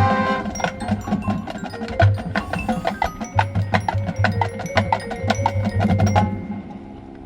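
Marching band drumline and front ensemble playing a percussion-heavy passage: rapid sharp strikes over pulsing bass drum hits, with mallet percussion and chimes ringing. The music breaks off about six seconds in, leaving a much quieter steady background.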